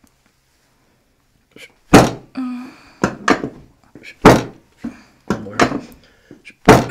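A woman's sharp breaths and short pained sounds right at the microphone as tender upper ribs beside her breastbone are pressed: about five loud bursts roughly a second apart, after a silent start.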